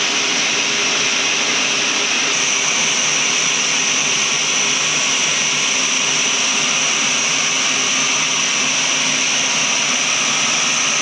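Sawmill machinery running steadily: a constant hiss with a high, even whine, holding the same pitch and level throughout.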